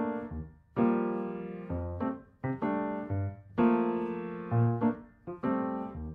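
Background music: keyboard chords struck about once a second, each ringing and fading, with low bass notes between them.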